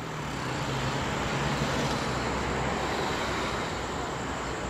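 Steady rumble of distant traffic, with a low hum underneath during the first couple of seconds.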